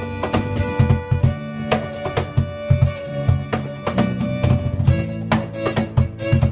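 Live worship music: a violin plays held notes over a steady drum beat of about two strokes a second, with a low bass part underneath.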